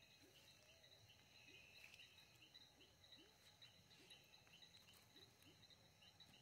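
Faint night chorus of frogs and toads calling from a pond: a rapid high call repeated about three times a second, with short low rising croaks coming about once or twice a second.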